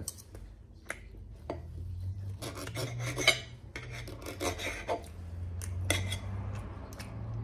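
Serrated table knife sawing through a rolled omelette, the blade scraping and clicking against a ceramic plate in a series of short strokes, with light taps of a fork.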